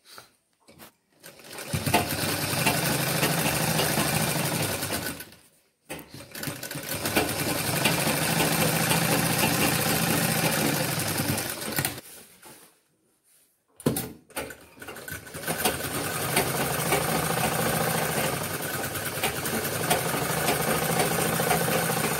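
Sewing machine stitching darts into white apron fabric, running steadily in three bursts with brief stops between them as the cloth is repositioned.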